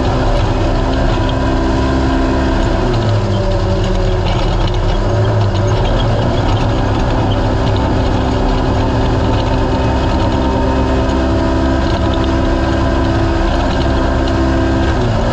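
Naturally aspirated race UTV engine running hard and loud throughout. Its pitch drops about three seconds in, climbs back a few seconds later, and dips again briefly near the end as the throttle eases and comes back on.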